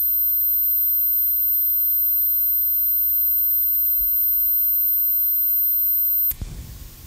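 A steady, very high-pitched electronic whine with a fainter tone below it over a low hum. It cuts off suddenly about six seconds in, leaving a brief quieter stretch of noise.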